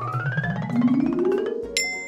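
Cartoon sound effect: a tone rising smoothly in pitch for about a second and a half, then a bright ding near the end, over background music.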